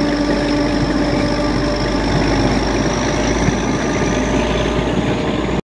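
Passenger train running along the track, heard from on board a moving coach: a steady loud rumble and rail noise with a faint high whine that slowly rises. It cuts off abruptly near the end.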